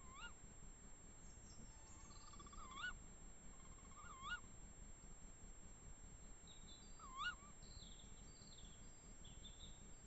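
Tawny owl calling four times with short, sharp calls that rise and fall in pitch, spaced a few seconds apart. Fainter high chirps from small birds come between them, over a quiet background.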